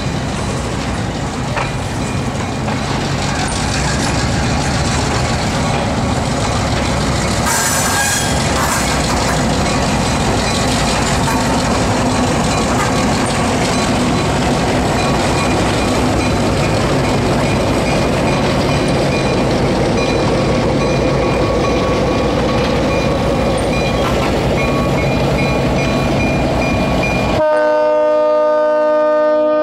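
EMD SW8 switcher's eight-cylinder 567 two-stroke diesel running as it moves covered hopper cars past, with wheels clacking over rail joints, a brief squeal about eight seconds in, and the engine getting louder as the locomotive draws close. Near the end the sound breaks off abruptly into a locomotive's multi-note air horn.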